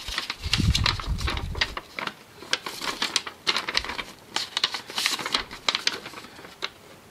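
A folded paper instruction sheet being unfolded and handled: irregular crackling and rustling of paper, with a few low bumps of handling in the first two seconds.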